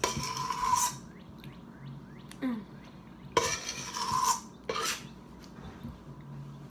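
A spoon scraping around the inside of a mixing bowl of leftover cake batter: three scrapes, one at the start, a longer one in the middle and a short one just after, with a faint ring from the bowl.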